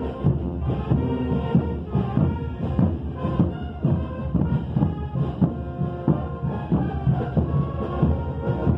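Morenada band music: brass instruments playing over a steady, heavy drum beat.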